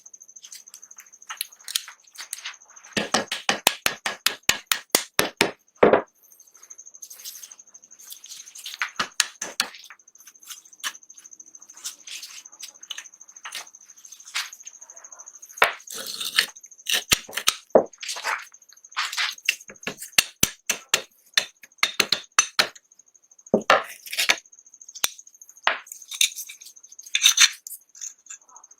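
Small metal tools tapping, clicking and scraping on pistol parts at a workbench, in irregular sharp taps with a quick run of rapid taps a few seconds in. A faint steady high whine sits under it.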